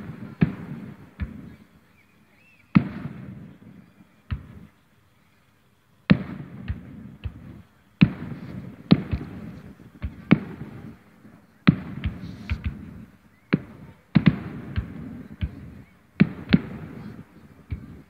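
Aerial fireworks shells bursting: a string of sharp booms at irregular intervals, each trailed by a rolling echo, with a short lull about four seconds in.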